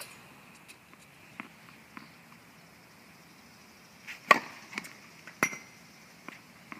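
Tennis ball struck by a racket with a sharp pop about four seconds in, the loudest sound, followed by another sharp ball impact about a second later. Fainter ticks of ball contacts come before and after.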